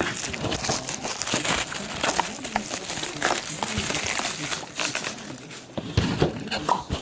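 Plastic wrapping and packaging crinkling and rustling as a sealed box of trading cards is unwrapped and opened, busiest in the first four seconds or so, with a soft knock about six seconds in.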